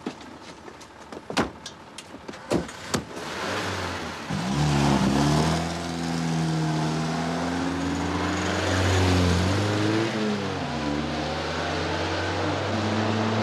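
A few sharp knocks like car doors slamming, then a car engine revving hard and pulling away, its pitch rising and falling as it accelerates.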